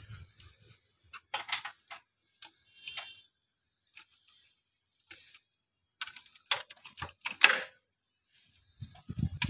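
Irregular clicks, knocks and scraping of a plastic air-filter housing cover being handled on a JCB engine, with its clips and latch being worked by hand. The densest, loudest run of clicks comes between about six and seven and a half seconds in.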